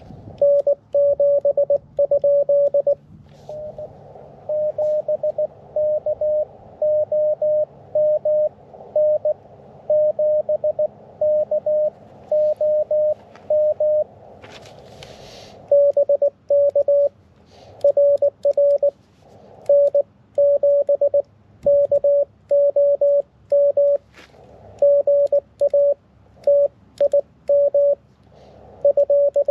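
Morse code (CW) keyed at one steady pitch from a portable QRP shortwave transceiver, dots and dashes in quick runs with receiver hiss behind them. A brief rustle about halfway through.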